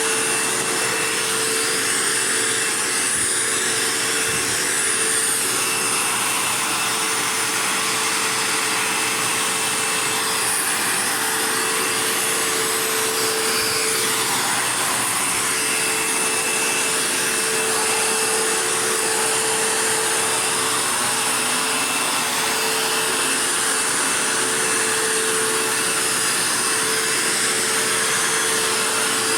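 Dirt Devil Jaguar bagged vacuum cleaner running steadily, its motor holding an even pitch under the rush of air.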